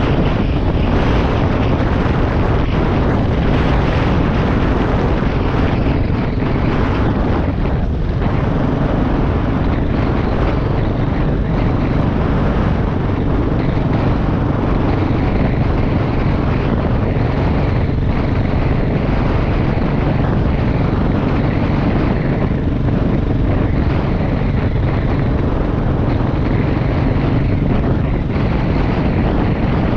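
Dual-sport motorcycle engine running steadily at cruising speed on a gravel road, mixed with heavy wind noise on the microphone.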